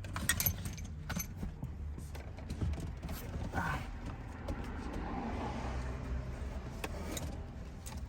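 Scattered clicks, knocks and creaks of car interior parts being moved and handled by hand.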